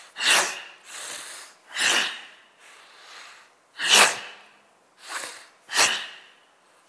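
A man's forceful bellows-style yoga breathing (Bhastrika, 'peaceful warrior breathing'): about five short, hard exhalations, with softer, longer inhalations between some of them.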